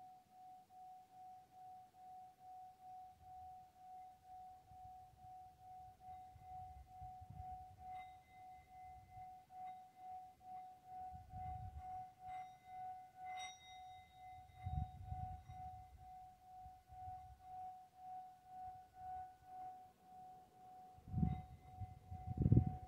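A steady, singing-bowl-like ringing tone that swells and fades about twice a second. A couple of faint clicks sound in the middle, and low rumbles come near the end.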